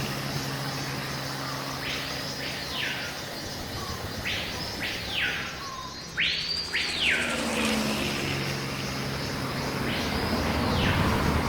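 A bird calling five times over a steady, low engine-like hum. Each call is a quick whistle that rises and then falls: one about two seconds in, two close together around five seconds, one near seven seconds and one near the end.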